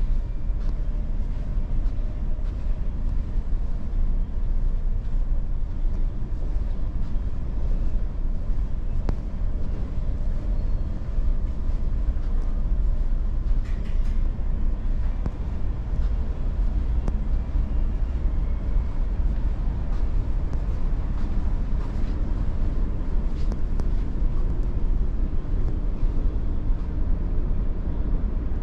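Steady low rumble of the Sunflower Furano car ferry's engines and hull vibration under way, heard inside the ship, with a faint steady hum and a few faint clicks.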